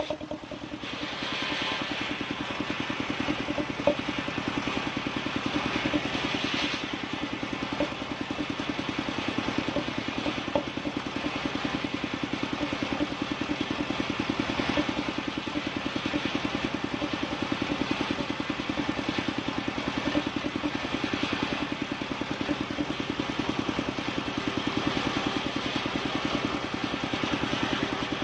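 Small engine of a wood-sawing machine running steadily with a rapid, even firing beat, with a hiss that swells and fades every few seconds.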